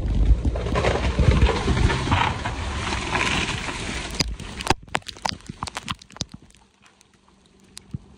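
A felled tree crashing down through branches: a loud rushing crash that fades out after about four and a half seconds into scattered snaps and crackles of breaking twigs.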